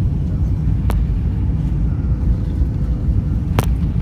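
Steady low rumble of jet engines and rushing air heard inside an airliner cabin on approach to landing. Two sharp clicks stand out, about a second in and again near the end.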